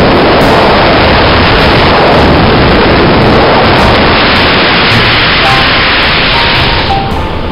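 Loud wind noise of rushing air buffeting a helmet-mounted camera's microphone during flight beneath a helicopter, a steady hiss and rumble that eases slightly near the end.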